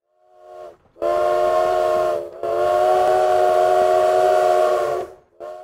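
Steam locomotive chime whistle blowing several steady notes together: a faint short toot, two long blasts with a brief break between them, then a short toot at the end.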